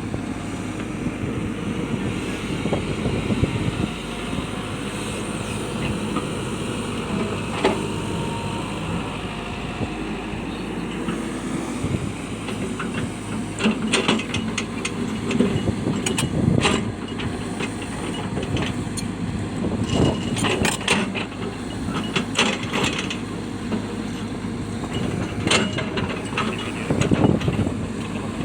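Hitachi excavator's diesel engine running steadily. From about halfway through, irregular sharp knocks and clanks come in, as rocks are broken and moved.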